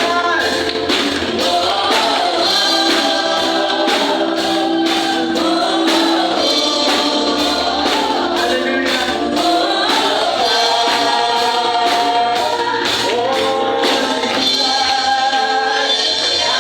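Worship song sung by a group of voices with band accompaniment and a steady percussion beat.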